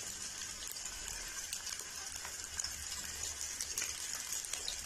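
Freshly cut okra just added to hot oil in an aluminium kadhai, sizzling with a steady high hiss as it deep-fries.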